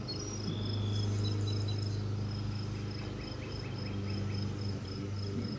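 Insects chirping in an even, steady pulse over a continuous low hum; a short run of quick, higher chirps comes in about three seconds in.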